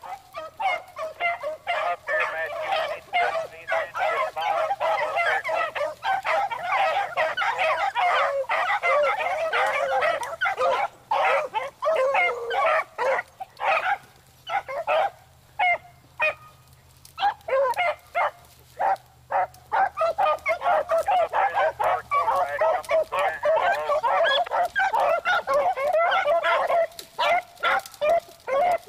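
A pack of beagles baying together, many overlapping cries, the hounds giving voice as they trail a rabbit's scent. The chorus thins to scattered single bays in the middle and builds back to a full chorus near the end.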